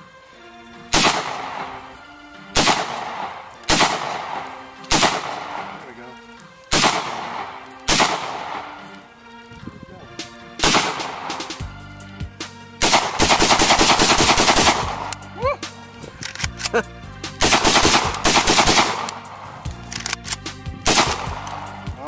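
Gunshots outdoors: single shots spaced a second or two apart, each with a trailing echo, then two strings of rapid shots in quick succession around the middle, and more single shots near the end.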